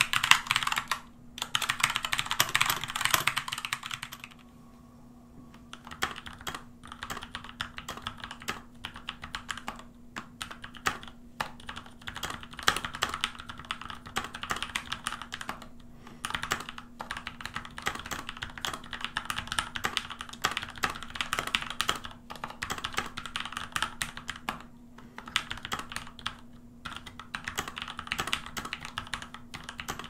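Fast typing on a Keychron K2V2 mechanical keyboard: a dense patter of keystroke clacks. It stops for about a second and a half some four seconds in, then resumes more softly and keeps going.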